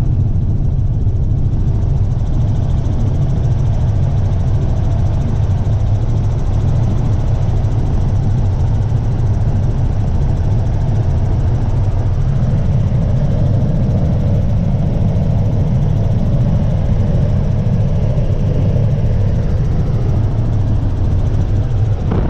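Helicopter in flight: a steady, loud low drone of engine and rotor.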